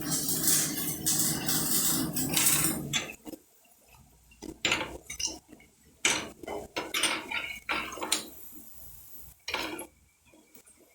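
Metal spoon stirring pakodas in a pan of hot frying oil, scraping against the pan. The scraping is continuous for about the first three seconds, then comes as a series of separate short scrapes and clinks, stopping near the end.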